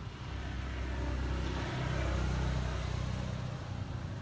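A motor vehicle passing by: a low engine hum with road noise that swells to its loudest about two seconds in and then fades.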